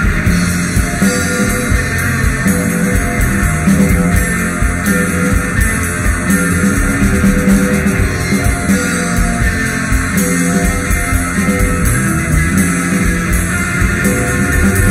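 Instrumental rock music played on guitar, bass and drum kit, running steadily and loud.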